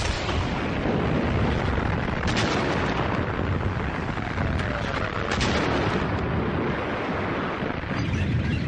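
Artillery fire and explosions over a continuous heavy rumble, with sharp cracks about two and a half and five and a half seconds in.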